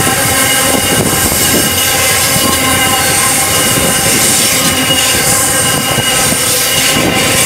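Grain train's hopper wagons rolling past at close range: a steady rumble of wheels on the rails, with several high, steady squealing tones from the wheels held over it.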